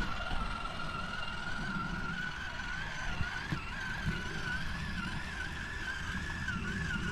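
Brushless electric motor of a Traxxas Summit RC truck driven slowly at low throttle, giving a steady high whine that wavers slightly with the throttle, over a low rumble from the truck.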